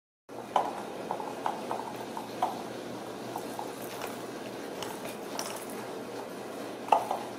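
Ragdoll kittens playing with a shoe on a rug: scattered light knocks and taps, with a sharper knock near the end, over a steady room hiss.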